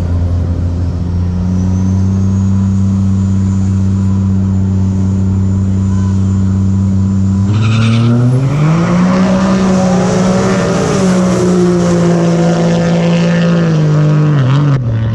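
Diesel drag truck launching: the engine is held at steady revs while a turbo whine climbs in pitch, then about halfway in it launches, the revs rising sharply as it pulls hard down the track, dropping off near the end.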